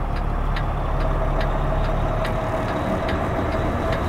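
Semi truck's diesel engine idling, heard from inside the cab, with a turn signal ticking steadily about twice a second.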